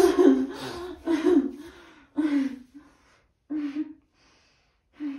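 A woman's laughter dying down: a few breathy laughs and gasps about a second apart, each shorter and quieter than the last.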